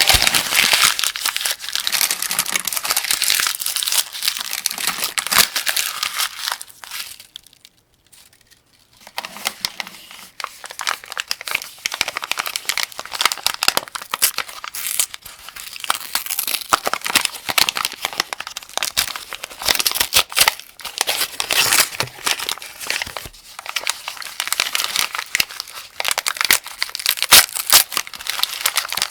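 Rifle cartridges being handled and loaded one by one into a 75-round AK-47 drum magazine: a dense run of small metallic clicks and rattles, with a short pause a little over seven seconds in.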